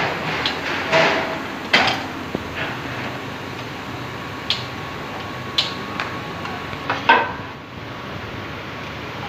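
A few sharp metal clinks and knocks as a steel mould plate is handled on the table of a CNC machining centre, the loudest about seven seconds in with a short ring. A steady machine-shop hum runs underneath.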